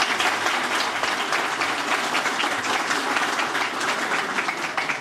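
Audience applauding, a dense, steady clapping that fades near the end.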